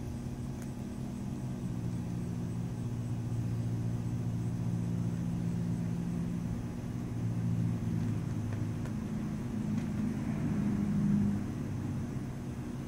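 Steady low engine hum, growing louder over the first few seconds and easing off a little after about eleven seconds.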